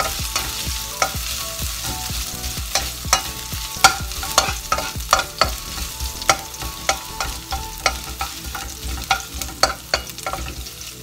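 A metal spatula scraping and clacking against a wok, about twice a second, as julienned ginger is stir-fried in hot oil, with a light sizzle beneath. The ginger is being sautéed until fragrant.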